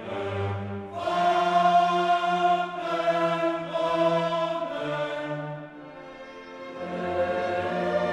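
Choral and orchestral music: voices and orchestra holding long chords that change about once a second. It grows quieter about six seconds in, then swells again.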